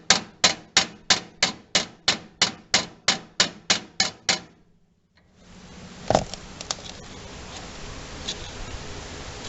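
Hammer tapping on a socket set over a seized hydraulic coupler on a John Deere 318, about fifteen sharp metal strikes at roughly three a second, trying to drive the stuck coupler loose. One louder knock follows a couple of seconds after the tapping stops.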